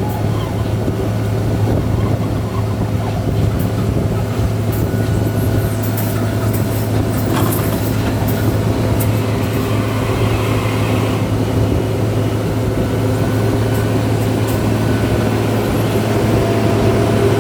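Pile-drilling machine running steadily, its engine giving a constant low hum with steady tones above it, and a few faint clicks scattered through.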